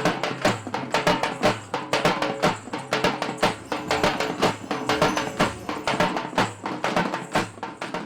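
Background music driven by fast, even percussion, several strikes a second, over sustained pitched tones.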